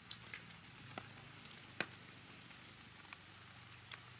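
A few scattered sharp taps and clicks over a faint steady hiss, the loudest a little under two seconds in.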